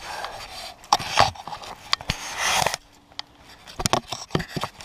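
Handling noises while a McCulloch Mac 10-10 chainsaw is refilled: scattered clicks, knocks and scrapes from the saw's cap and the gas cans. A short hiss comes about two seconds in.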